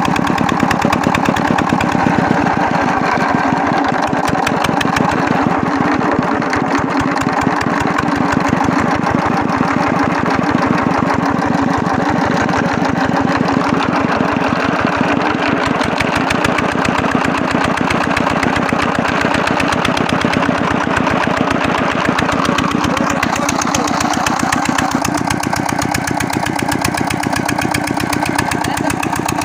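25 HP Fiat LD diesel engine running steadily with an even, rapid firing knock, freshly rebuilt with a new cylinder sleeve, piston and rings.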